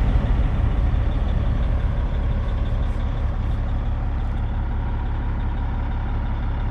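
Loaded grain truck's diesel engine idling steadily, just started and building air pressure for its air brakes.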